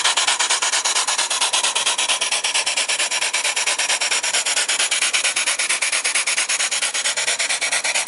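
Small steam engine, fed by a vertical steam boiler, running steadily with rapid, even exhaust beats, several a second.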